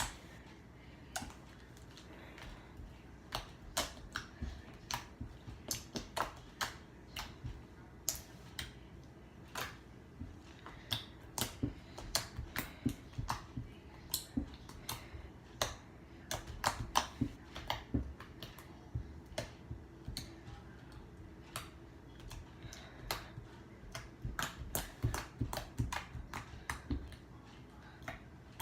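Butter slime being poked and pressed by hand, making irregular sharp clicks and pops: its poking and bubble-popping noises.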